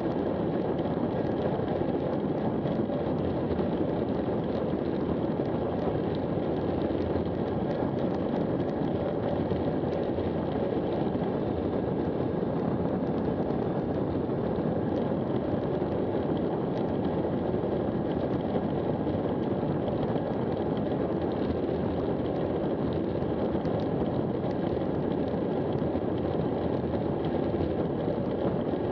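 Steady rush of wind over a bike-mounted action camera's microphone during a fast road-bike descent at around 50–60 km/h, mixed with road noise from the tyres.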